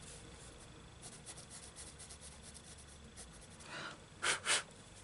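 A coloured pencil shading lightly on thin book paper in faint, quick scratchy strokes. Near the end there is a soft breath in, then two short, louder puffs of breath.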